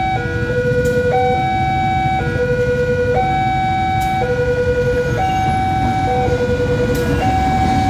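Railway level-crossing warning alarm sounding: an electronic chime of three alternating tones that repeats about every two seconds, over a steady low rumble.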